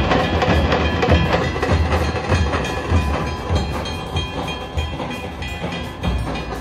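A troupe of large dhol drums beaten together with sticks in a fast, driving rhythm of deep thuds and sharp cracks, with a few thin high tones sounding over it. The sound grows a little fainter toward the end.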